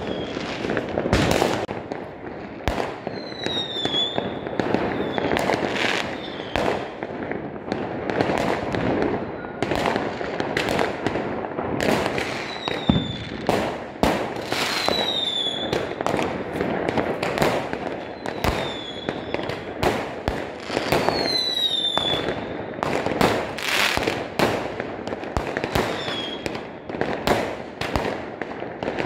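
Fireworks going off in rapid succession: a steady stream of bangs over continuous crackling, with short falling whistles every couple of seconds.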